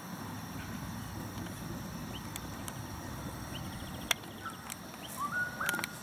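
Outdoor rural ambience: birds chirping and trilling faintly over a steady low rumble. There is a sharp click about four seconds in and a few more clicks with a short whistled note near the end.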